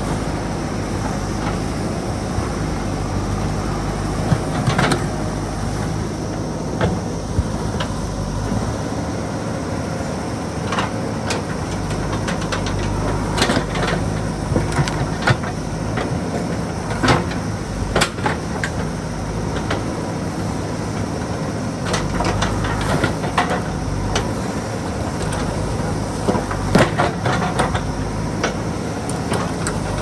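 JCB 3DX backhoe loader's diesel engine running steadily as the backhoe digs, with irregular sharp clanks and knocks of the bucket against rocks and stones.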